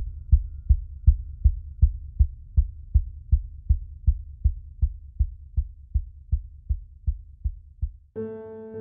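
Background music: a steady low pulsing beat, about three thumps a second, that cuts off about eight seconds in, where a piano track begins.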